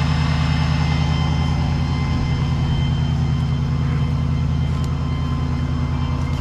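Tow truck engine idling steadily, a low, even rumble with a regular pulse.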